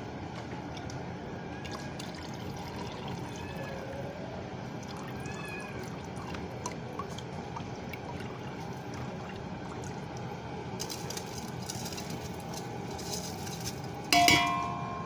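Steady watery sound from a pot of boiling biryani masala water as rice is layered into it. About fourteen seconds in, a sudden loud ringing clank.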